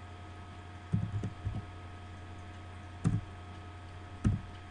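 Computer keyboard keystrokes: a quick cluster of three key presses about a second in, then two single presses about three and four seconds in, over a steady low electrical hum.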